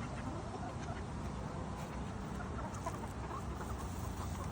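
Chickens clucking in a coop, with many short, scattered calls and a steady low hum underneath.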